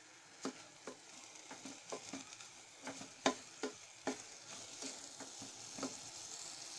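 A spatula stirring and scraping raw rice as it fries in masala in a pressure cooker: irregular scrapes about once or twice a second over a faint sizzle.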